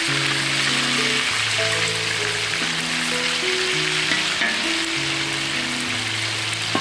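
Small whole fish shallow-frying in hot oil in a metal wok: a steady sizzle of bubbling oil, with background music of slow held notes underneath.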